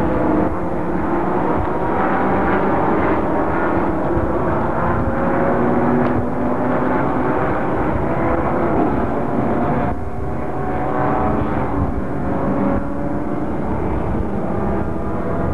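Engines of several racing cars lapping a road course, their overlapping tones slowly rising and falling in pitch as they speed up and slow down.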